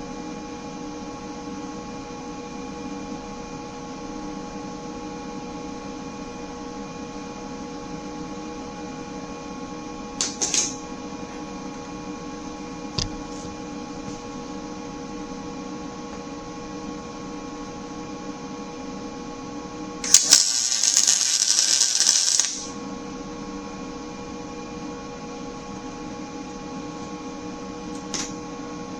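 Steady electrical hum of shop equipment, with a few light clicks of tools being handled. About two thirds of the way in comes one loud, harsh hiss lasting about two and a half seconds.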